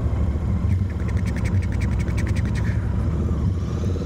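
Royal Enfield Continental GT 650's parallel-twin engine running steadily at low speed, with a rapid ticking for a couple of seconds near the start.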